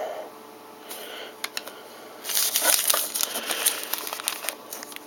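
Crinkling and rustling of a trading-card pack's foil wrapper, or of cards, being handled. It starts with a few faint clicks and turns into dense, irregular crackling about two seconds in.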